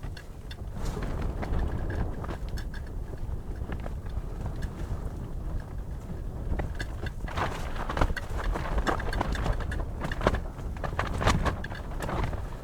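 Wind rumbling on the microphone, with scattered clicks and crunches that come thicker in the second half.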